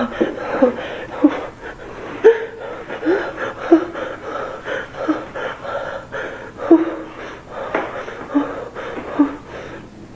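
Breathy, voice-like sounds: short gasps or whimpers repeating roughly once a second over a steady hiss.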